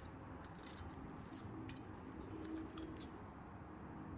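Faint scattered plastic clicks of a 5×5×5 Rubik's cube's layers being turned through an edge-pairing algorithm, over a low steady room hiss.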